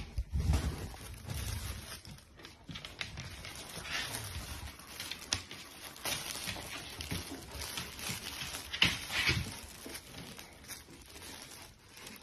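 Fabric cat tunnel rustling in irregular bursts as a dog pushes its nose into it and a cat moves inside. The louder rustles come near the start and again about nine seconds in.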